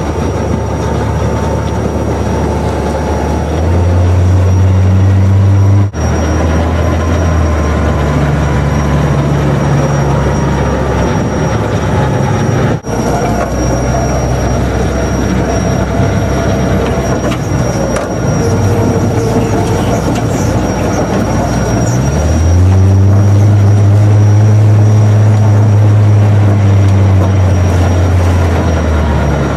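Off-road vehicle's engine running over a rough dirt trail, heard from inside the cab with the jolting and rattle of the ride. About three quarters of the way in, the engine note climbs and holds higher and louder.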